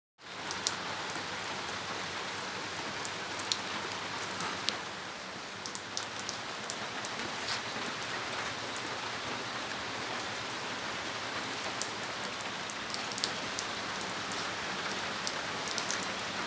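Steady rain falling, with scattered individual drops tapping sharply close by.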